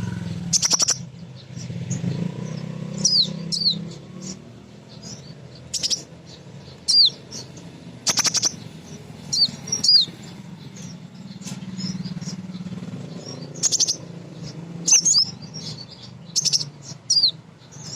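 Female sunbird (the 'kolibri ninja' of Indonesian bird keepers) calling: sharp high chirps that sweep down in pitch, repeated every second or two, with quick rattling chatter in between. A low hum runs underneath.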